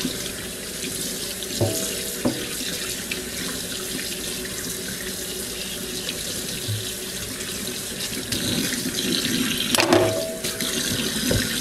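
Kitchen faucet running into a stainless steel sink as a split Cornish hen is rinsed under the stream, water splashing off the bird and hands. A few light knocks against the sink, the loudest about ten seconds in.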